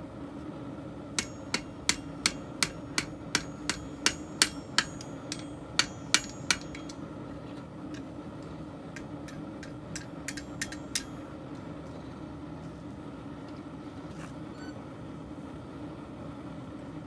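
Hand hammer striking a steel messer blade on the anvil with a ringing clang, about three blows a second for some five seconds, then a few lighter taps about ten seconds in, over a steady hum. The blows are straightening the blade.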